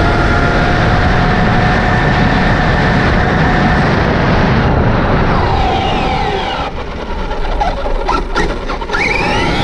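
Onboard sound of a Traxxas Rustler 4x4 RC truck on a brushless Castle Sidewinder 4 system running on 3S, driving fast on pavement: heavy wind and tire rush over a steady electric motor whine. In the second half the whine glides up and down as the truck slows, turns and accelerates again.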